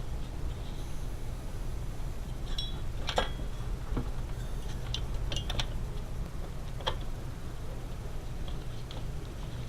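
A few light clicks and clinks of a motherboard and its metal back plate being handled and fitted into a desktop computer case, the sharpest about three seconds in, over a steady low hum.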